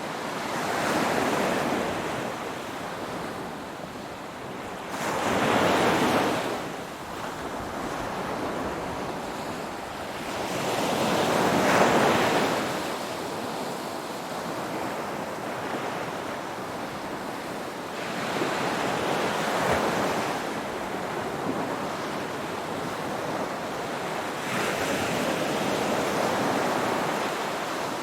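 Ocean waves breaking and washing onto shore: a rushing surge about every six seconds over a constant hiss of surf.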